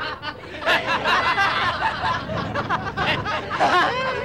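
Men laughing loudly.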